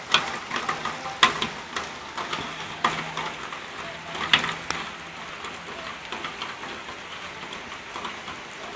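Rain pattering, with irregular sharp taps of drops hitting close by.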